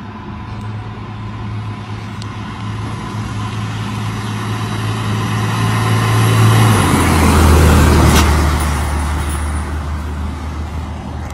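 A fire engine's diesel engine and tyres pass close by at road speed. The sound builds as it approaches, peaks about eight seconds in, then fades as it goes away, and its steady engine note drops to a lower pitch shortly before the peak.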